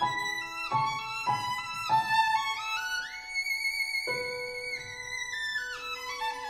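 Background music: a solo melody of sliding notes, with a long held, slightly wavering note in the middle.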